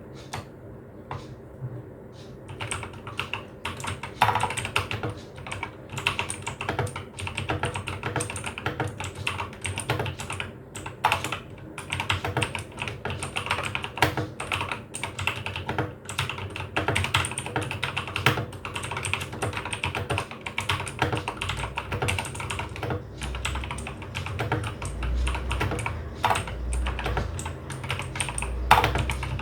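Typing on a budget mechanical keyboard fitted with lubed Outemu blue clicky switches, a fast, continuous run of key clicks. A low thudding sits under the typing in the last several seconds.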